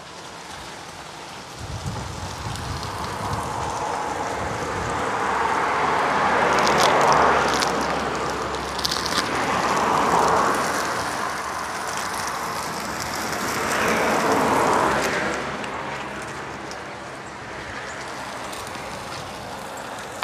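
Cheese-topped Spanish mackerel burger patties sizzling over an open fire, with a few crackles from the fire. A rushing noise swells and fades three or four times.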